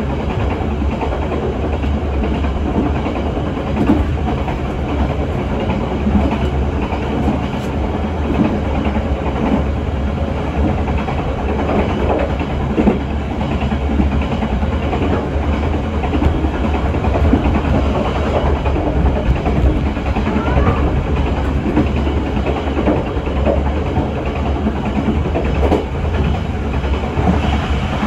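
Passenger train running along the track, heard from its rear car: a steady, loud wheel-on-rail running noise, deepest at the low end, with small irregular knocks and rattles throughout.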